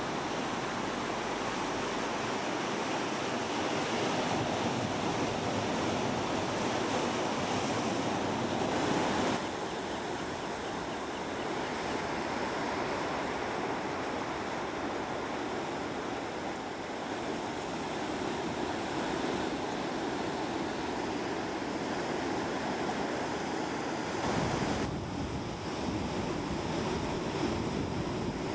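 Ocean surf breaking and washing in a large swell: a steady wash of noise, with wind on the microphone. The sound shifts abruptly twice, about nine seconds in and again near the end.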